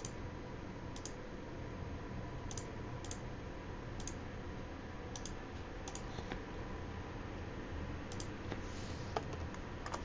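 Computer mouse and keyboard clicking: about a dozen short clicks at irregular intervals over a faint steady hum.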